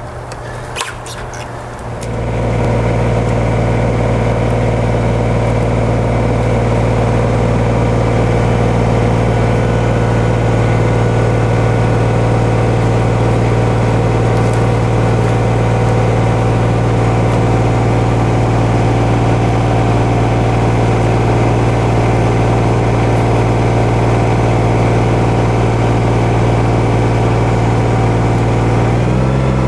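An engine comes up to speed about two seconds in and then runs steadily at a constant speed, shifting slightly in pitch near the end.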